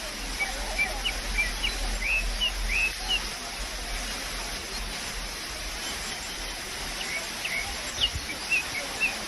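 Birds chirping in quick runs of short notes, one run in the first few seconds and another near the end, over the steady rush of a waterfall.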